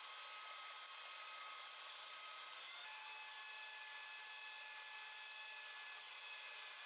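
Electric hand mixer running, its beaters whisking egg whites in a glass bowl as they begin to froth. The motor's steady whine changes pitch about three seconds in.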